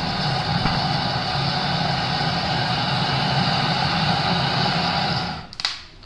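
Gas torch fed from an LPG cylinder, burning with a loud, steady rushing noise as it is held into a firebox to light firewood. The sound stops suddenly about five seconds in, and a sharp click follows.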